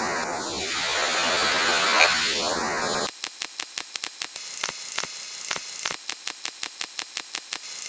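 Electronic sound effect: a hiss swept by a phaser, rising and falling in pitch twice. About three seconds in it changes to a fast, even, buzzy stream of clicks, roughly eight a second.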